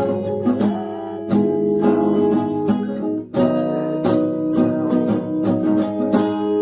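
Music: acoustic guitar strumming chords in an instrumental passage of a song, with a few gliding notes over them.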